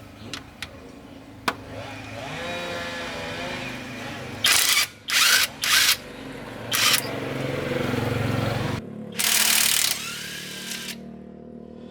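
Five short, loud bursts of hiss over a steady low machine hum, with a few sharp clicks near the start.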